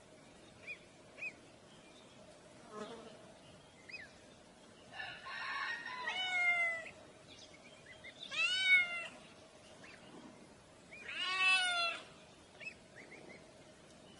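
Ducklings peeping with a few soft, short high cheeps, and a cat meowing three times, each meow about a second long, rising then falling, two to three seconds apart and louder than the peeps.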